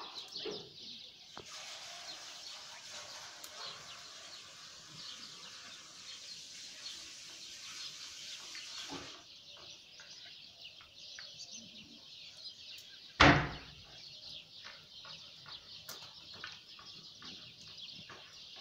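Small birds chirping and twittering continuously over a soft outdoor hiss. A single loud thump about two-thirds of the way through.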